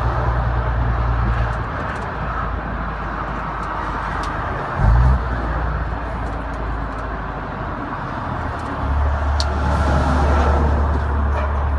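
Mack E7 E-Tech diesel engine of a Renault Magnum 440 truck heard from the cab, its drone easing off about a second and a half in, a short low thump near the middle, then the engine pulling hard again near the end, over steady road noise. The pattern fits a manual gear change on the ZF 16-speed gearbox.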